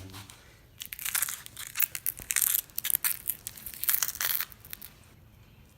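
An iPhone 11 being crushed under a hammer: a dense run of crunching and cracking from its broken glass and body for about four seconds, then it stops.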